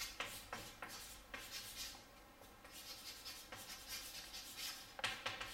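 Chalk writing on a chalkboard: a run of short scratching and tapping strokes as words are written, with a louder tap about five seconds in.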